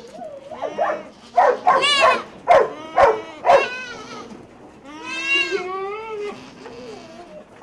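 Goats bleating: a run of about five short calls one after another, then about five seconds in a single longer, wavering bleat.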